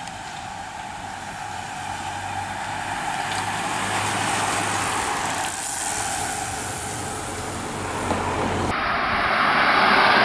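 A large group of racing bicycles rides past with a swelling hiss of tyres and rushing air. After a sudden cut, a Volkswagen Passat drives up toward the microphone and is loudest near the end.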